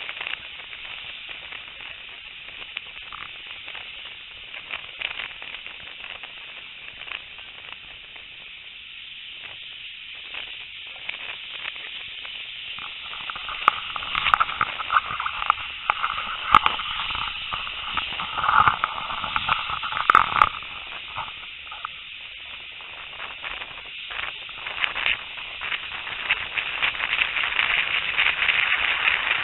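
Steam-hauled train running, heard from an open carriage window: a steady rushing hiss with many irregular clicks and knocks, and a higher tone coming and going through the middle. It grows louder in the middle and again near the end.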